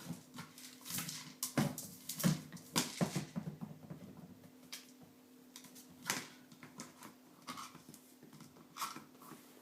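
A puppy working a food-dispensing toy: irregular knocks and clatters as the toy is pushed and bumped about, with the dry food inside rattling, busiest in the first few seconds and sparser after.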